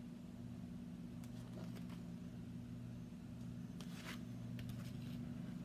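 A few soft rustles and scrapes of a picture book's paper pages being handled and tilted, the clearest about four seconds in, over a steady low hum.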